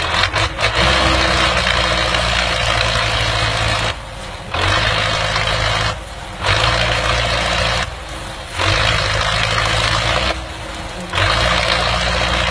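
Tractor engine under heavy load, revved hard in five surges of a second and a half to three seconds each, easing briefly between them, while it hauls a trailer piled high with sugarcane.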